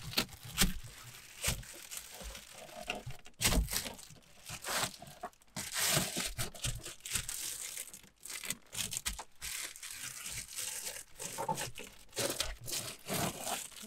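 Reflectix foil-faced bubble insulation crinkling and crackling as it is pressed by hand into a car window frame for a tight fit. The crackles come irregularly, with a few louder ones along the way.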